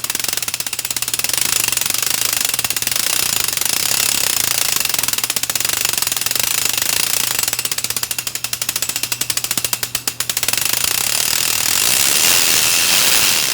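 Polygon Siskiu T8 mountain bike's cranks turned backwards by hand, the freehub pawls clicking in a rapid, steady ratchet as the freshly lubed chain runs back through the drivetrain. The clicking dips briefly about ten seconds in, then runs a little louder until it stops.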